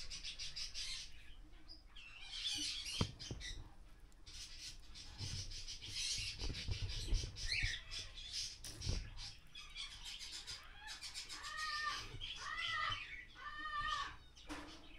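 Animal calls: scattered high chirping, then a quick run of short calls in the last few seconds, each rising and then falling in pitch.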